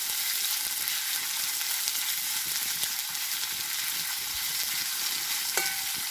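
Sliced onions sizzling steadily in hot sunflower oil in an iron kadai as they are stirred to brown, with a few light scrapes and a brief ringing clink near the end.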